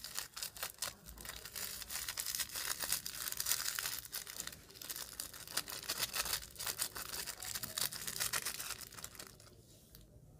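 Plastic piping bag crinkling as it is squeezed, with small white beads spilling out and clicking onto a glass dish, a dense crackle of many small clicks. It stops about a second before the end.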